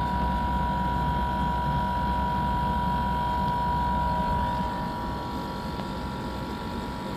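Outdoor air-conditioning condensing unit running: a steady low hum with a steady high whine over it, from the compressor and condenser fan. The sound drops slightly in level about four and a half seconds in.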